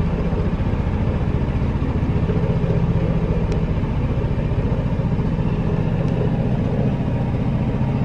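Narrowboat's inboard engine running steadily at cruising speed, a constant low, rapidly pulsing drone.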